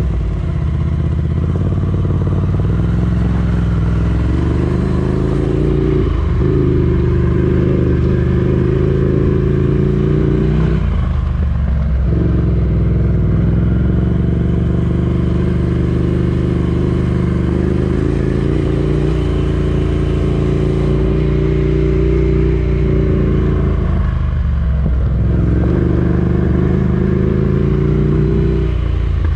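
Scrambler Ducati Desert Sled's 803 cc air-cooled L-twin engine running at steady revs, its note breaking briefly about six, eleven and twenty-four seconds in before picking up again.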